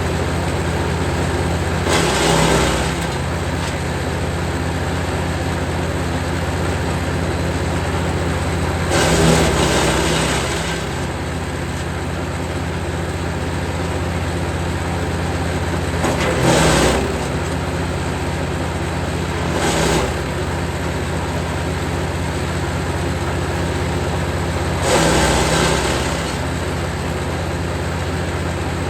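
Jansen 1500e GTS wood chipper's engine running steadily, with five louder surges of one to two seconds as fruit-tree branches are fed in and chipped.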